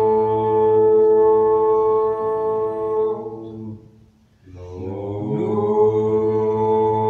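A low male voice chanting a mantra on one long held tone. About four seconds in it fades away for a breath, then comes back with a short upward slide and holds the note again.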